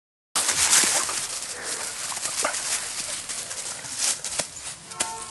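Dry fallen leaves crunching and rustling underfoot as a dog runs through them, starting abruptly and loudest in the first second, then easing off. A sharp click about five seconds in.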